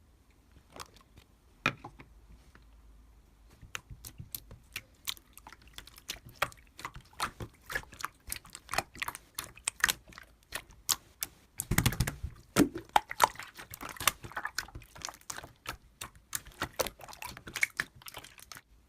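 Rapid, irregular clicking and tapping, like typing on a keyboard, with a louder burst of knocks and thuds about twelve seconds in.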